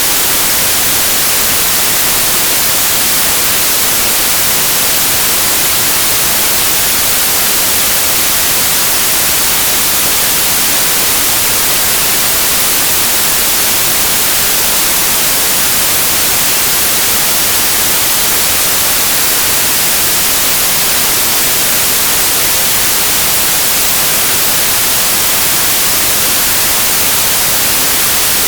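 Steady white noise: a loud, even hiss weighted toward the high end, unchanging throughout.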